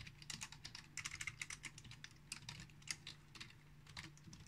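Typing on a computer keyboard: quick, irregular key clicks, faint, over a steady low hum.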